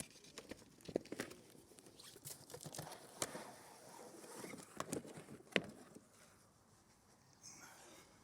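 Handling noise from a coiled pressure-washer hose and its plastic fittings: scattered sharp clicks and knocks with rustling, dying down about six seconds in.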